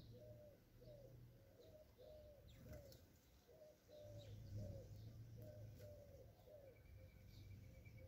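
Eurasian collared dove cooing: a long run of short, soft coo notes, about two a second, each dipping slightly in pitch. Faint sparrow chirps sound now and then above them.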